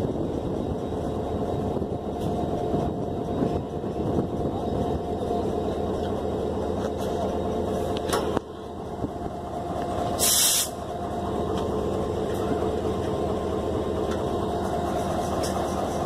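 HGMU-30 EMD diesel-electric locomotive idling close by, a steady engine hum. A sharp clank comes about eight seconds in, and a short, loud hiss about ten seconds in.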